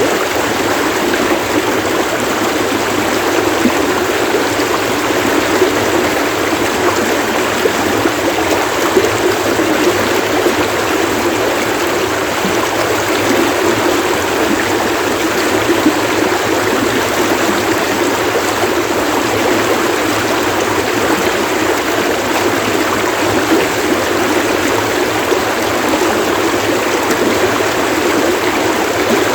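Splashing stream water running steadily, an even, continuous rush without breaks.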